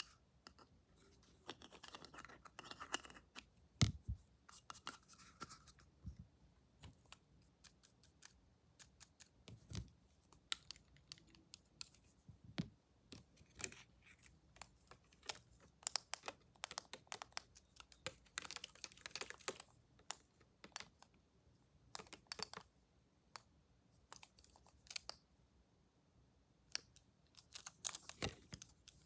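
Close-up barber-tool handling sounds: irregular sharp clicks and snips, like scissors or clippers worked near the microphone, with short stretches of scratching and rustling.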